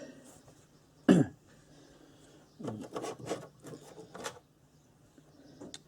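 Workshop handling noises: one loud knock about a second in, then a string of irregular clunks and rattles over the following two seconds as parts and tools are handled.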